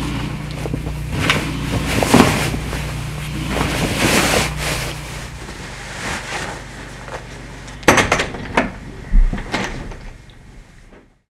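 Clothes rustling and handling noises as a person pulls on jeans and moves about a small room over a low steady hum, then a few sharp clicks and knocks about eight to nine seconds in from the bedroom door being opened. The sound fades out near the end.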